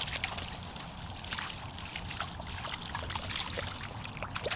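Small brook trout splashing at the water's surface as it is led into a landing net: a run of irregular small splashes and drips.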